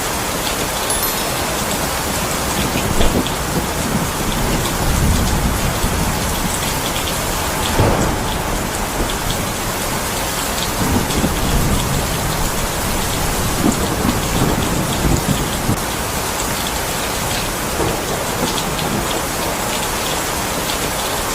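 Steady heavy rain, with low rumbles of thunder swelling and fading several times.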